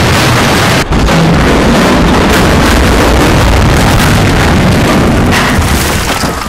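Section of a ship's steel superstructure collapsing onto the beach: a loud, continuous rumble and crash of falling metal and debris. It breaks off briefly under a second in and eases near the end.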